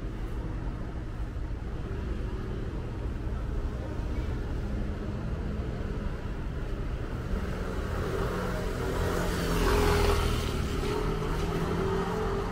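Street traffic: a steady low rumble, then a vehicle passes close near the end. Its engine and tyre noise swells to a peak and eases off.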